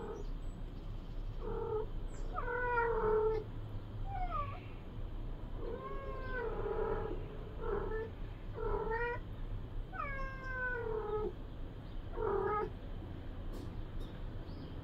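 Adult cat meowing over and over: about eight meows a second or two apart, several of them long and drawn out.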